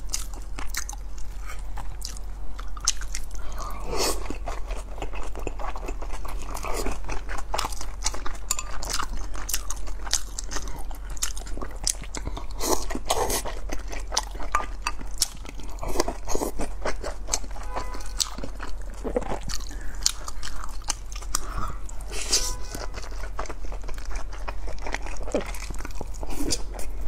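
A person eating boiled dumplings: chewing and biting, with many small, wet mouth clicks.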